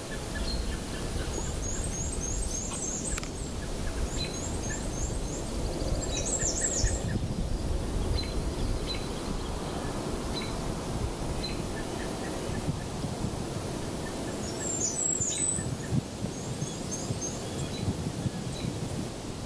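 Small birds singing several times in high, thin bursts of quick repeated notes, over a steady low rushing background.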